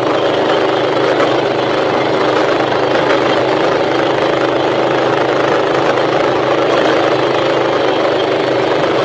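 Mini bike's small engine running at a steady, even speed while riding, with wind noise on the microphone over it.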